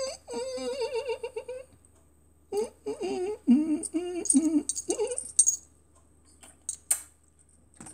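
A man's voice making playful, wavering wordless noises and giggles, a silly character voice for toy figures, in two bursts. A few sharp clicks follow near the end.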